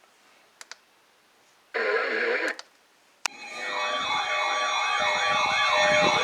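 Several sirens sounding together in a fast rising-and-falling warble over steady ringing tones, coming in about three seconds in and growing louder. Before them, a couple of faint clicks and a short warbling tone lasting under a second.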